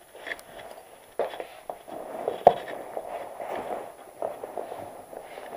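Rustling and handling of a fabric backpack being packed, with a few knocks, the sharpest about two and a half seconds in.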